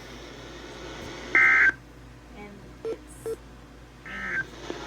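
Two short bursts of EAS SAME digital data tones, a shrill two-tone warble, about three seconds apart over faint radio hiss. These are the coded data bursts that mark the boundaries of a NOAA Weather Radio alert message.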